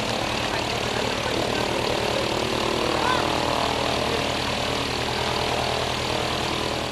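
Light propeller aircraft's piston engine running at a steady, unchanging pitch.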